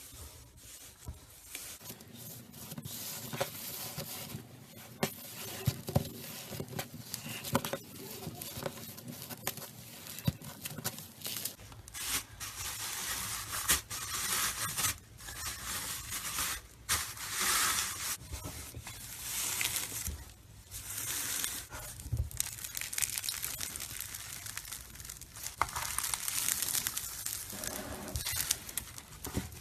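Slime being squished and stretched, a steady run of sticky crackles and sharp pops.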